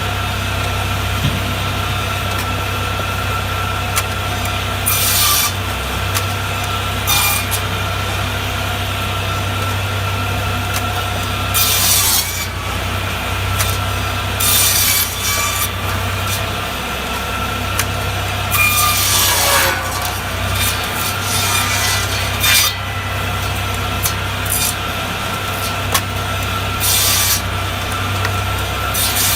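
Tractor-driven firewood processor running steadily, with a series of short grinding bursts every few seconds as it saws through logs.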